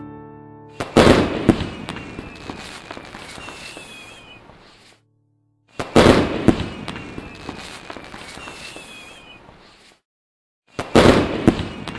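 Fireworks sound effect played three times over: each starts with a sudden bang, then crackles and fades over about four seconds under faint falling whistles, with a brief silence before the next.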